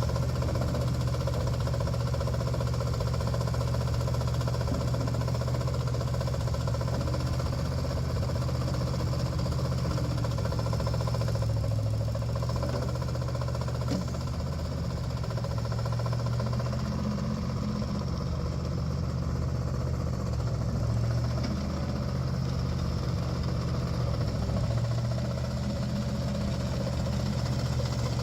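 Bobcat M-600 skid steer's two-cylinder gasoline engine running steadily, its speed rising and falling slightly several times, with a single sharp click about halfway through.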